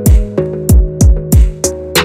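Background music: a drum-machine beat with deep kicks that fall in pitch, about three a second, each with a sharp crack, over held synth chords.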